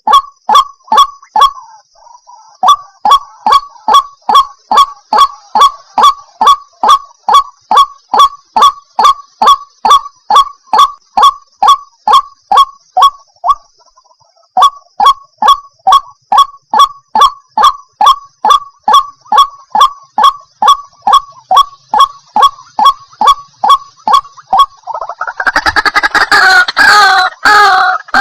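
White-breasted waterhen (ruak-ruak), a female's call, giving a long run of short, evenly repeated honking notes at about three a second, broken twice by short pauses. Near the end the calls turn into a denser, faster run of overlapping notes.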